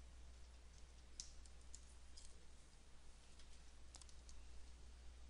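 Near silence with a low steady hum and a few faint computer mouse clicks, a close pair of them about four seconds in.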